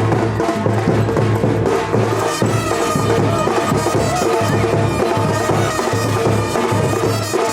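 Loud traditional-style music with steady percussion and sustained melodic tones.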